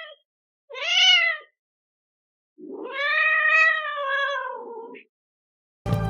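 Domestic cat meowing: the end of one meow at the start, a short meow about a second in, then a long, drawn-out meow that rises and falls in pitch and fades about a second before the end.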